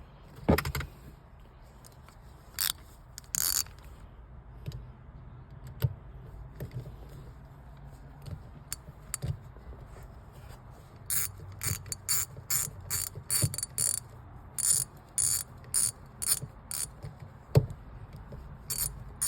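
Ratchet wrench clicking in short bursts as the shifter handle's bolts are tightened down, with a quick run of strokes in the second half.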